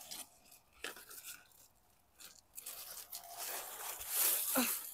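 Dry garden vines and leaves rustling and crunching as a hand pushes in among the stems. The rustling is irregular and gets louder and busier in the second half.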